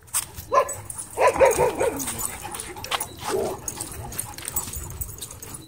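Dogs barking in short bursts: one bark about half a second in, a quick run of barks about a second in, and a few more about three seconds in.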